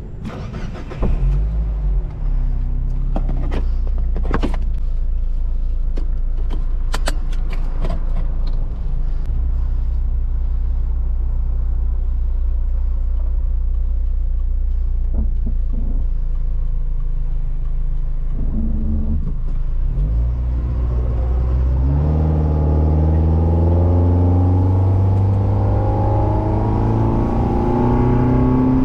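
Mazda Miata's four-cylinder engine heard from inside the cabin, running at low revs as the car drives along, with several sharp clicks and knocks in the first nine seconds or so. About 22 seconds in the car accelerates and the engine note rises steadily in pitch.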